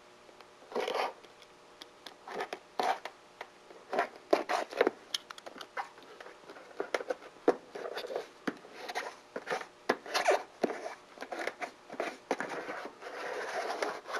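Sheet-metal handling: irregular clicks, snips and scrapes of metal roofing and flashing being cut and worked by hand, with a longer scraping slide near the end.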